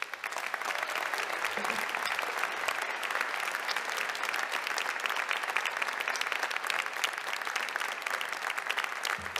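A large audience applauding: dense, steady clapping from thousands of hands that starts suddenly and keeps up without letting off.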